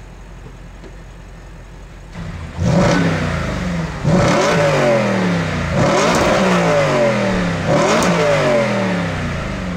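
Audi RS4 B8's 4.2-litre V8 idling, then revved four times about two seconds apart, the exhaust note rising and falling in pitch with each rev.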